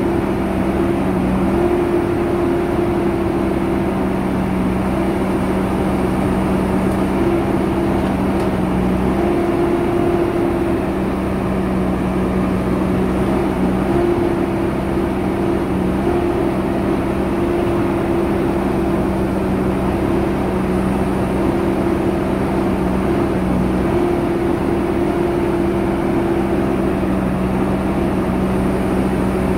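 JCB 3DX Super backhoe loader's diesel engine running steadily with a constant hum, and a higher whine that comes and goes.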